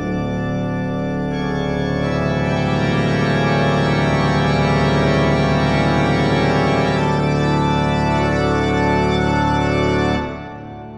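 Background music: long held chords on a keyboard-like instrument, starting abruptly and dying away about ten seconds in.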